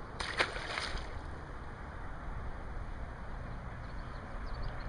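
Largemouth bass splashing into the pond as it is released by hand: one brief splash in the first second. Afterwards a steady low wind rumble on the microphone.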